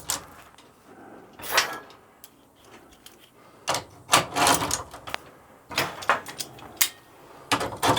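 Vise-Grip locking pliers being handled in a slotted steel box-section rack: irregular knocks and short scrapes as they are slid in and out.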